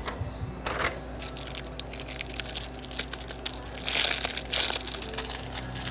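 Crinkling and crackling of something crinkly being squeezed and handled close to the microphone: many small clicks, growing dense and loudest about four seconds in.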